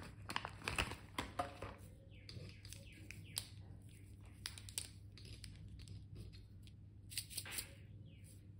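Thin clear plastic packaging crinkling and crackling as pens are pulled out of it and handled, densest in the first second and a half, with a few more crackles about seven seconds in, over a low steady hum.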